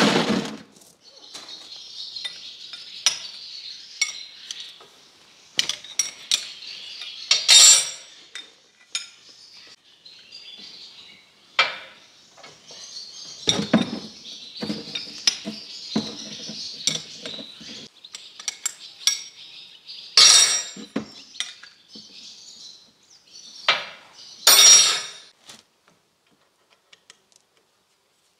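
Steel hydraulic hose fittings and wrenches clinking and knocking as the hoses are threaded and tightened onto a hydraulic multi-coupler. The clinks are irregular, with a few louder metal knocks spread through, and the work stops a few seconds before the end.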